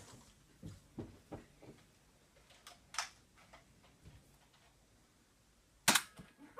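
Scattered light knocks and clicks in a small room, with one loud sharp crack near the end.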